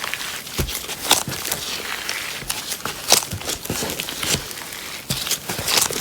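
Hands squeezing and kneading slime, with irregular sticky crackles and sharp little pops and snaps about every half second to second.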